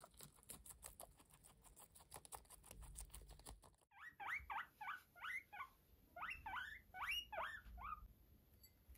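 Long-haired Sheltie guinea pig chewing lettuce, a rapid run of crisp crunching bites. About four seconds in, it squeals: around a dozen short, rising squeaks in quick groups.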